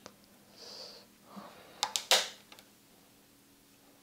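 Plastic push-pin fasteners of an Intel-style CPU cooler being forced into a warped motherboard: a few sharp clicks about two seconds in, the last the loudest, with a short breathy hiss before them. The pins go in stiffly and latch badly because the board is bent.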